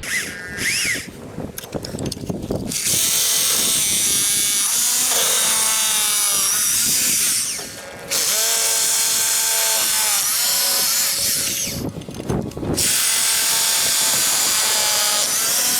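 Power drill running in three long bursts, its motor pitch sagging and recovering as it loads up in the work.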